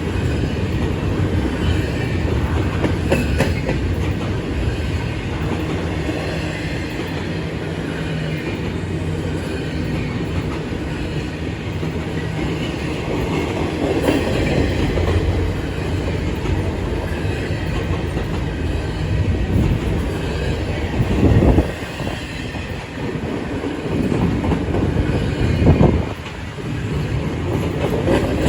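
Train rolling by with a steady rumble and wheels clattering over the rails, with two brief louder surges near the end.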